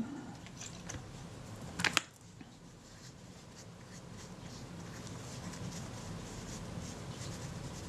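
Faint scratching and handling of small camera parts on the bench, with one short clatter about two seconds in, over a low steady hum.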